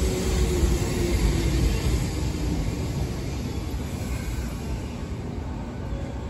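Sanyo Electric Railway local train pulling in and slowing to a stop at the platform: wheels and running gear rumbling, with a falling whine early on and the noise dying away as it slows.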